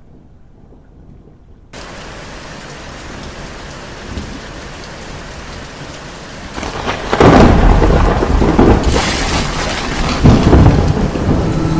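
Thunderstorm: steady heavy rain begins suddenly about two seconds in, then thunder builds and breaks loudly about seven seconds in, with more rolls of thunder after it.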